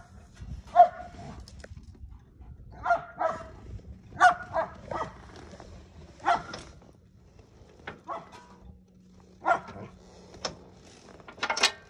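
A dog barking repeatedly, about ten short barks at irregular intervals, over a faint steady low hum.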